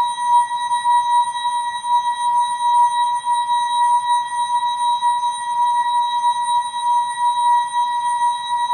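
The ASKfm app's notification sound, slowed down enormously so that it becomes one steady, unbroken electronic tone with fainter higher overtones, its loudness wavering slightly.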